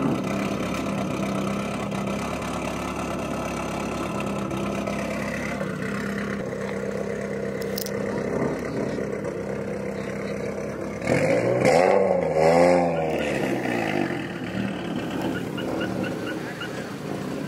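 Car engine running steadily, then revved up and down several times about eleven seconds in, the loudest part.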